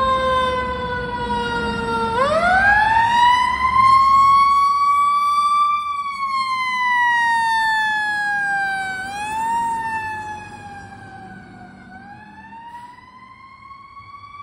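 Fire truck siren wailing, its pitch climbing and falling in long, slow sweeps of several seconds each, with a low vehicle rumble beneath. It grows fainter about ten seconds in.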